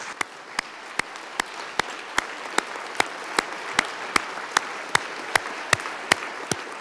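Audience applauding, with one pair of hands close by clapping loudly and steadily at about two and a half claps a second above the general applause.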